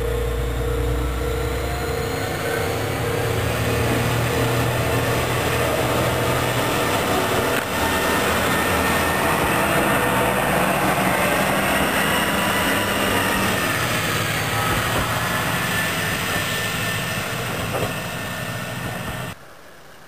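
Heisei Chikuho Railway diesel railcar pulling away and passing close by, its engine and wheels on the rails swelling to a loud peak midway and then easing off. About nineteen seconds in the sound cuts off abruptly to a much quieter steady hum.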